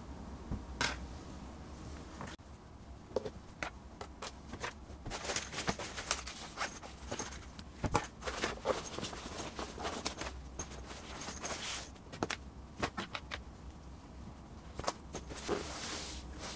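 Clothes being handled and folded for packing: fabric rustling with scattered soft taps and clicks at irregular moments.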